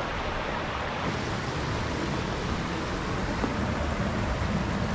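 Steady rushing of stream water flowing among rocks after a rain shower, an even noise with a low rumble underneath.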